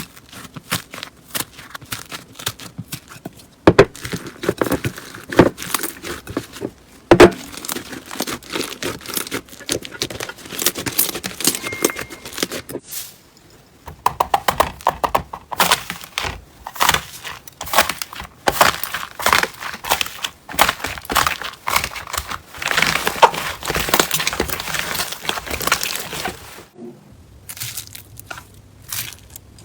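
Slime being squeezed, poked and stretched by hand, giving dense crackling and popping clicks. The texture changes abruptly about halfway through and again near the end.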